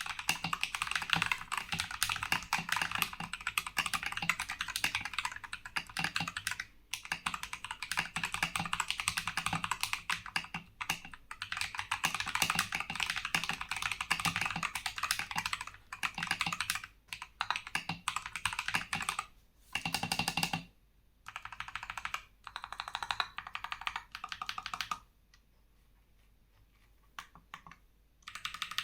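Typing on a TM680 mechanical keyboard with lubed Akko CS Ocean Blue tactile switches and PBT XDA keycaps: fast, continuous keystrokes, then shorter bursts with pauses, stopping about 25 seconds in with one brief burst near the end.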